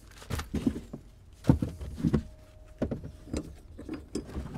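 Scattered knocks, bumps and scraping as loose items and the carpeted floor panel are handled and lifted out of an estate car's trunk, with the louder knocks about one and a half and two seconds in.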